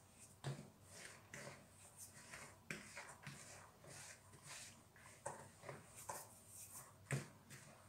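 Faint, irregular rustling and scraping of a hand rubbing oil and salt into flour in a plastic bowl, with a few sharper knocks of the hand against the bowl.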